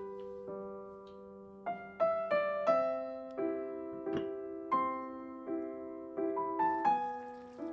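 Background music: a slow, gentle solo piano melody, each note struck and left to fade.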